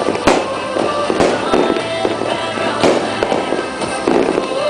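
New Year's fireworks and firecrackers going off: several sharp bangs at irregular intervals, the loudest about a third of a second in, with crackling between them.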